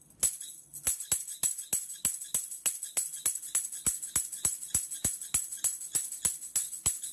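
Music: a tambourine shaken and struck in a fast, even beat, its jingles ringing bright.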